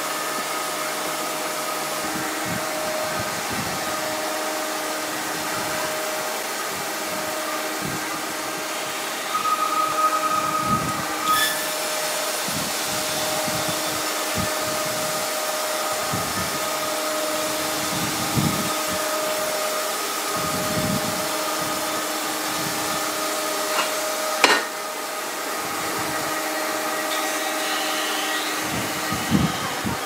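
Sawmill machinery running with a steady hum, with a couple of sharp knocks about eleven and twenty-four seconds in.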